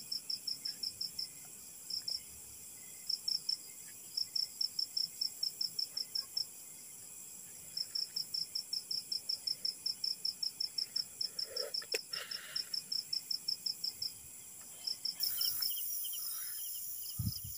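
A cricket chirping: high, evenly spaced pulses at about five a second, in runs of a few seconds with short pauses between. A faint click and rustle come about twelve seconds in.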